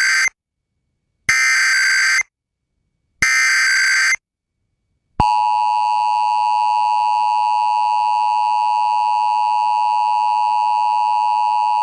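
Emergency Alert System SAME header: harsh digital data bursts about a second long, with a second of silence between them, the last of three ending about four seconds in. About five seconds in, the steady two-tone EAS attention signal starts, announcing an EAS test message.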